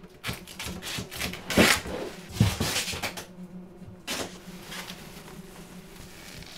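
Bumping, knocking and scraping of household furniture and appliances being shoved about in a room, busiest in the first few seconds and thinning out to a few scattered knocks.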